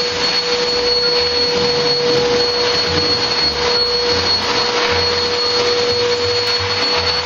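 Industrial wet/dry vacuum running steadily with a constant whine, its floor tool drawn across the terrazzo floor.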